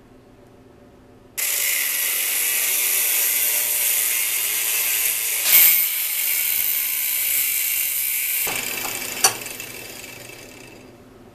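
Angle grinder grinding the end of a steel pipe sleeve clamped in a vise. It starts about a second and a half in with a loud, steady, high-pitched hiss, changes about eight seconds in, and fades away as the grinder winds down.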